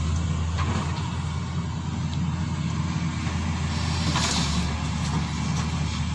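Caterpillar tracked excavator's diesel engine running steadily as it works and raises its arm, with a few light clanks and a brief hiss about four seconds in.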